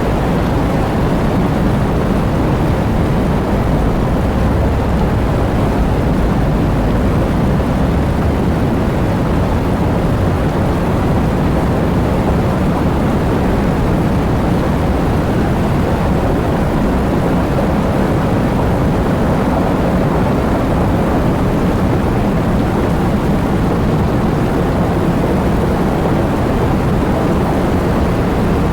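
Heavy rain falling steadily, a dense, even noise weighted toward the low end with no separate drops or claps standing out.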